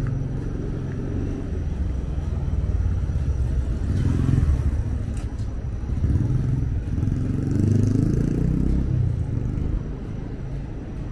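Road traffic passing, with engines rumbling. The rumble swells about four seconds in and again around eight seconds, where an engine's pitch glides up and down.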